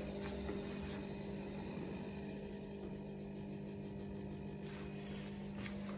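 Power feed unit on a milling machine table running at its slowest speed, giving a steady low hum.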